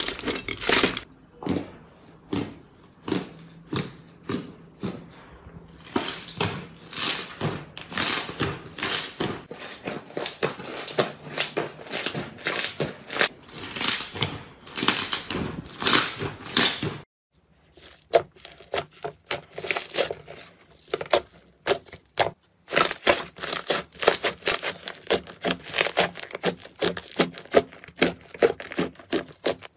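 Hands squeezing, kneading and pressing slime: rapid wet crackling, popping and squelching clicks as air pockets burst. The sound breaks off briefly about halfway, then starts again.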